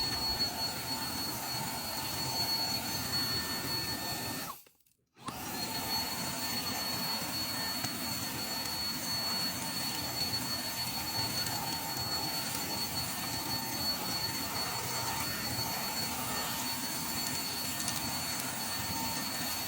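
Handheld car vacuum cleaner running steadily while vacuuming a car's floor, a constant high whine over airflow hiss. The sound drops out completely for about half a second around five seconds in, then resumes unchanged.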